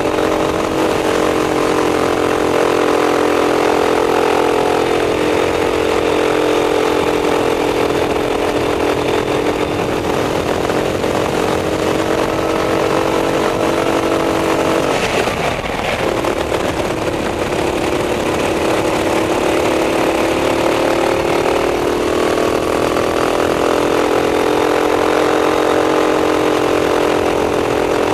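Racing kart engine running at high revs under racing load, its buzzing note wavering with throttle through the corners; the revs drop briefly about halfway through, then climb again.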